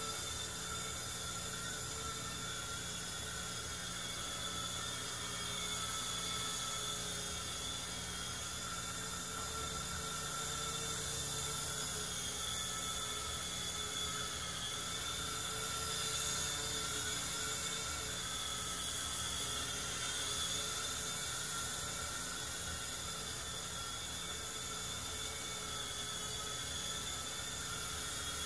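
Blackspyder XT micro RC helicopter's electric rotor motors whining steadily as it flies around the room, the pitch wavering slightly as the throttle changes.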